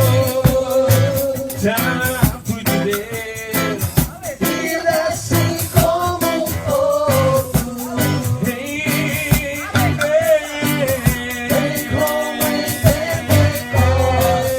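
Music with a singing voice over drums, with a steady beat of regular strokes.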